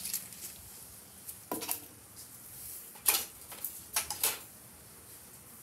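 Folded paper slips rustling in a plastic party cup as a hand rummages and draws one out, then crinkling as the slip is unfolded: a few short, crisp rustles and clicks.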